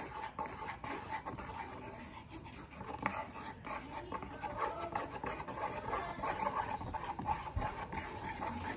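Faint crinkling and rubbing of a soft plastic sachet being squeezed by hand, with scattered small rustles.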